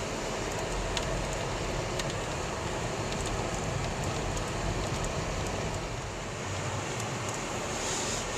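Steady road noise and engine hum of a car driving, with a few faint, scattered ticks.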